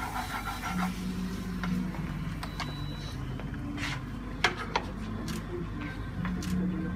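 Metal spatula scraping and knocking against a frying pan as a stir-fry is stirred, tossed and served out onto a plate: a string of separate short scrapes and clinks. A low steady hum runs underneath.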